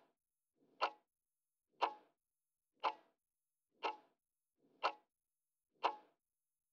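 Clock-tick sound effect of a countdown timer: single sharp ticks, one each second, six in all.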